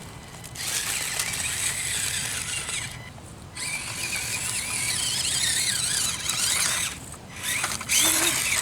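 Axial SCX24 1/24-scale micro crawler's small electric motor and gearing whining at a high pitch in three runs, the pitch wavering up and down with the throttle as it crawls over rock.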